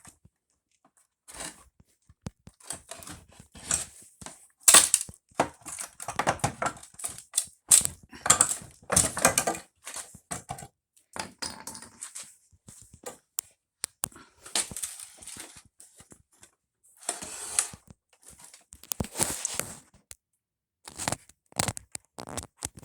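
Hammer knocks on wooden pallet boards and shims, mixed with the boards cracking and tearing loose as they are pried apart. The knocks come irregularly, with several noisy spells of cracking lasting about a second each.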